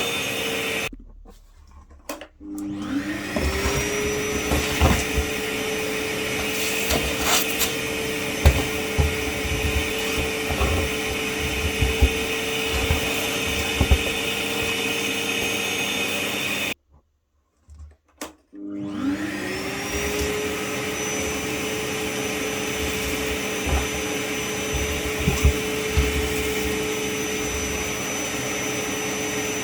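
Kärcher WD 6 P wet/dry vacuum cleaner running with a steady motor whine, over scattered knocks and clicks. Twice it cuts out for a second or two, then the motor spins back up with a rising whine.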